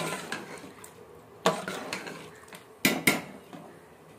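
A perforated steel spoon stirring rice in broth in an aluminium cooking pot, clinking and scraping against the pot's side and rim several times.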